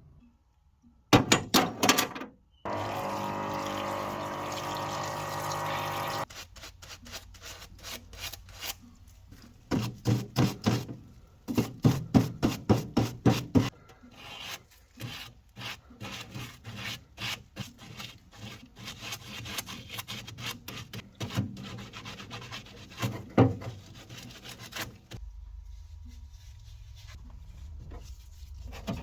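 Hand rubbing and scraping strokes on small parts, irregular and repeated, as the parts are worked over by hand, with a steady small-motor hum lasting about three seconds near the start and a couple of sharp knocks before it.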